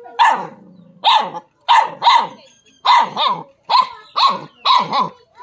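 A dog barking over and over at a snake, about ten barks in quick succession, roughly two a second, some coming in close pairs.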